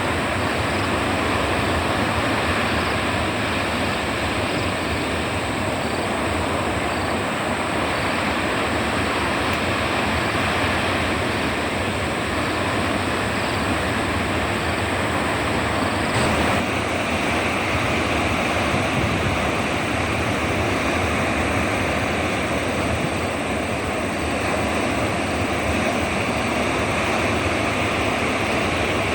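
Ocean surf: a steady, continuous wash of breaking waves, its tone changing slightly about halfway through.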